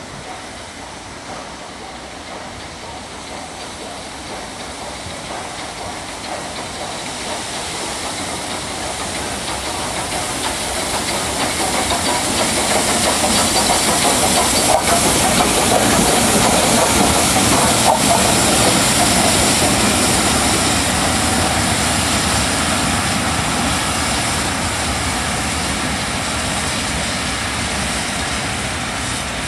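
LMS Royal Scot 46115 Scots Guardsman, a three-cylinder 4-6-0 steam locomotive, running through with its train of coaches: the sound grows louder as it approaches, is loudest about halfway through as it passes close, then slowly fades as the coaches roll by.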